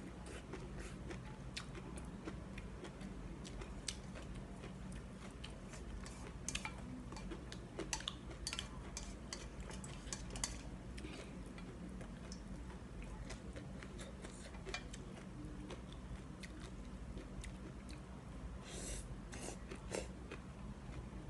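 Close-up eating of instant noodle soup: noodles slurped and chewed with wet mouth smacks, and wooden chopsticks and a spoon clicking against an enamel pan as the noodles are stirred and picked up.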